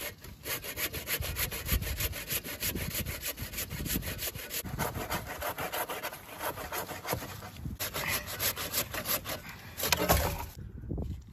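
Hand panel saw cutting through a dead wooden log in quick back-and-forth strokes, getting louder just before the sawing stops near the end.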